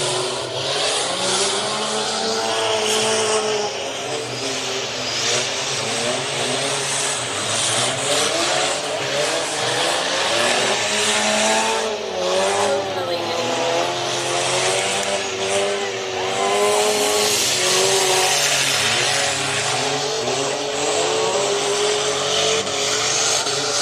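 Several race car engines running hard together, their pitches rising and falling as the cars accelerate and back off around the track.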